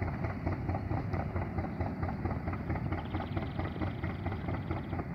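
GE U12 diesel-electric locomotive's diesel engine running steadily with a low, even throb. A faint high rapid ticking joins about three seconds in.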